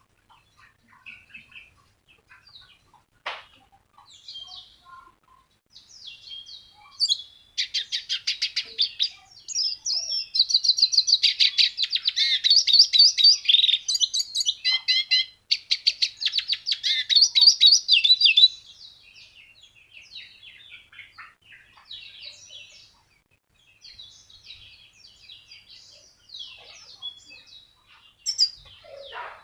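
A songbird singing: scattered short chirps, then about seven seconds in a long, fast, loud run of rapid high notes lasting about eleven seconds, before it falls back to softer, sparser chirps.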